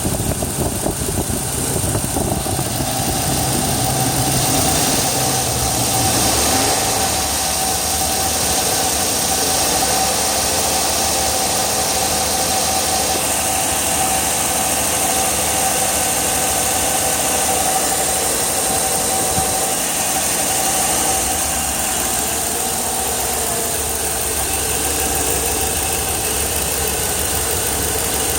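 2002 Chevrolet Tahoe's 5.3L V8 idling steadily, with a steady whine over the running.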